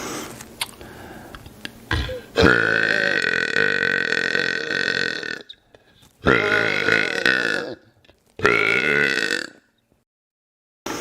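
A man burping loudly, over and over: a softer lead-in, then one long burp of about three seconds followed by two shorter burps, with gaps of silence between. The same sequence begins again near the end.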